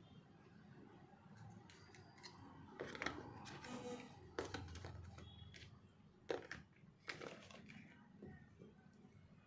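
Faint rustling and crinkling with several sharp clicks as a phone box and its packaging are handled; the sharpest click comes about six seconds in.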